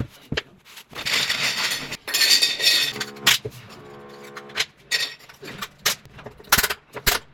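Plastic tile levelling caps and tools clattering as they are dropped and set down on a ceramic tile floor, with light clinks and a few sharp knocks near the end. A rustling rush lasts about a second and a half soon after the start, and a low steady hum sounds in the middle.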